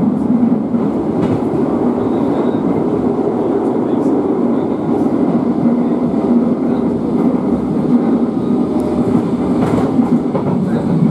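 London Underground 1973 Stock train running at speed, heard from inside the carriage: a steady loud rumble of wheels and running gear with a few brief clicks near the end.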